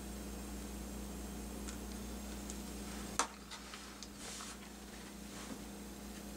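Small plastic wire connectors being pushed together and cables handled on a cutting mat: one sharp click about three seconds in, then a few light clicks and rustles, over a steady low electrical hum.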